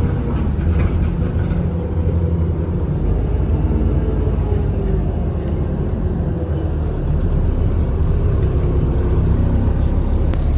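Alexander Dennis Enviro400 E40D double-decker bus running, a steady low engine drone. A thin high whine comes in briefly about seven seconds in and again near the end.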